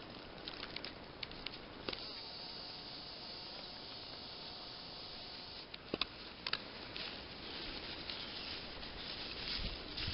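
Spring forest ambience: a steady rustling hiss with scattered sharp clicks and snaps, the two loudest about six seconds in.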